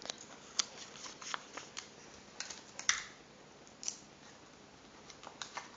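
Paper being handled and taped: scattered short crinkles and clicks, the sharpest about three seconds in.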